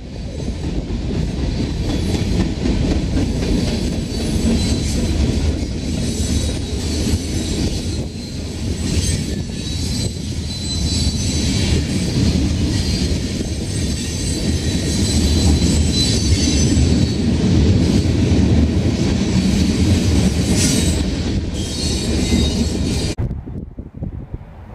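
Freight train cars rolling past: a steady rumble of wheels on the rails with high-pitched wheel squeal over it. The sound cuts off abruptly near the end.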